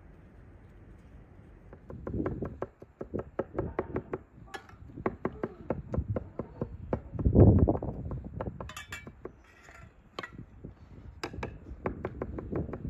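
Metal spoon tapping and clinking against an enamel saucepan while melted butter is spooned onto rolled dough, with light knocks on a wooden board. One louder thud comes about seven seconds in.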